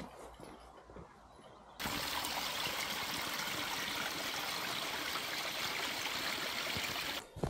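A small stream trickling and splashing down a mossy rock face: a steady rush of water that starts abruptly about two seconds in and cuts off just before the end.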